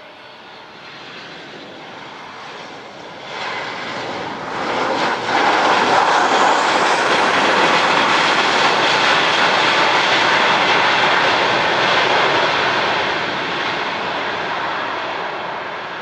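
Boeing 737-500's CFM56 turbofan engines on landing roll-out. The jet noise is moderate at first, then swells sharply in two steps about three and five seconds in as the engines spool up after touchdown, typical of reverse thrust. It holds loud for several seconds, then slowly fades as the airliner slows.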